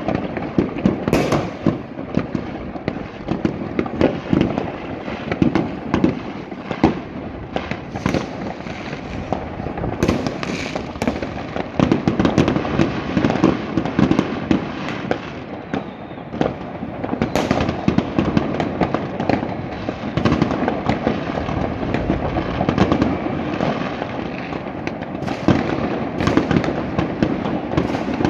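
Fireworks going off in many places across a city at once: a continuous barrage of overlapping bangs, crackles and pops, with louder, sharper reports standing out now and then.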